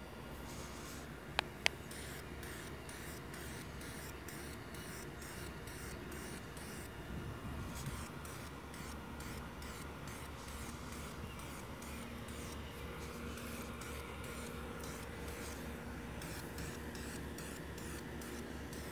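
Aerosol can of epoxy spray paint hissing as black paint is sprayed onto a motorcycle shock's coil spring, with two short clicks about a second and a half in.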